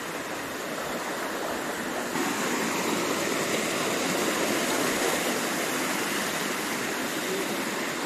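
Waterfall water rushing down a stream: a steady, dense hiss that gets a little louder about two seconds in.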